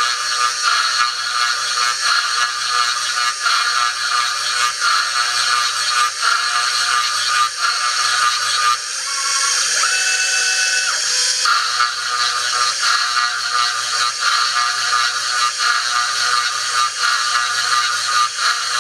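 CNC gantry mill's spindle whining steadily at 8700 RPM as a 3/16-inch milling cutter cuts holes in wood. Under it, the machine's axis motors drone in a cycle that repeats about every second and a half. Around ten seconds in, this changes for a couple of seconds to a steadier two-note hum during a longer move.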